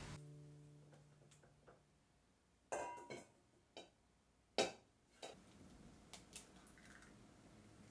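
Eggs tapped and cracked against the rim of a stainless steel mixing bowl: a handful of separate sharp taps and knocks, the loudest about halfway through.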